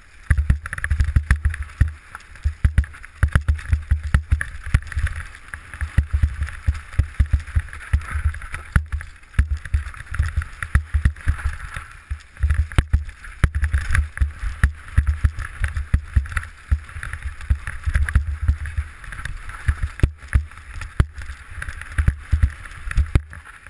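Downhill mountain bike on a rough dirt trail, heard from a helmet-mounted camera: steady wind buffeting on the microphone with dense, irregular rattles and knocks as the bike runs over bumps and roots. It quiets just before the end as the ride slows.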